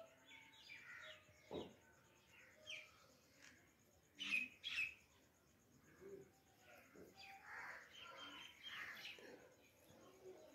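Faint chirping of small birds, many short scattered calls, with a couple of louder ones about four seconds in.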